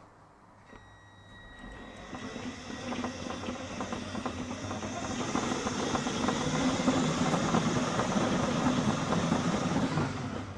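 Radio-controlled toy Mini Cooper S running: its small electric motor and gear train whirring with a dense, rapid clatter, which is the knocking noise being traced. It starts with a faint high whine about a second in, builds over the next few seconds, and stops just before the end.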